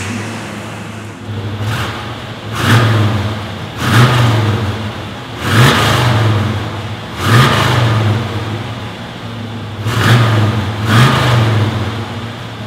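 1968 Chevrolet Camaro's 327 cubic-inch V8 running and being revved again and again: about six or seven sharp throttle blips, each rising and falling back to a steady idle between them.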